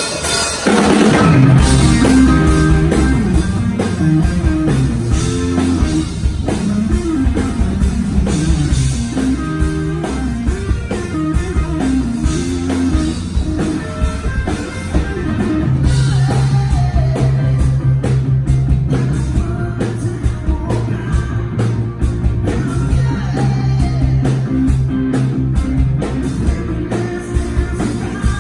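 Live rock band playing loudly: electric guitars, drum kit and keyboard over a steady bass line.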